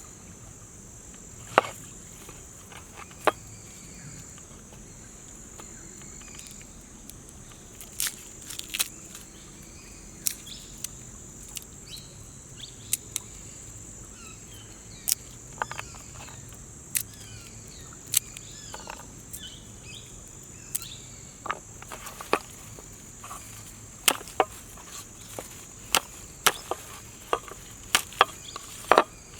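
Steady high-pitched insect chirring, crickets or similar, with a series of sharp taps or knocks every second or two that come more often in the last several seconds.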